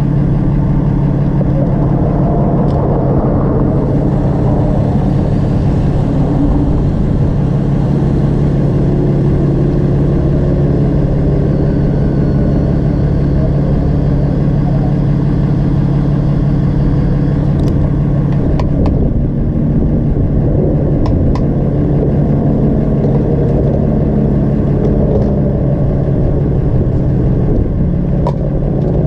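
Motorcycle engine idling steadily at a standstill, with a few faint clicks in the second half.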